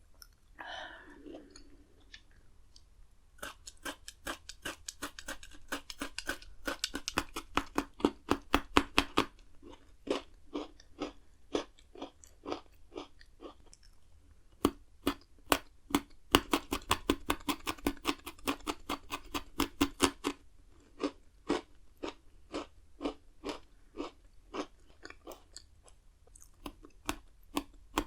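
Pocky, chocolate-coated biscuit sticks, being bitten and chewed close to the microphone: rapid crisp crunches, several a second, in runs with short pauses.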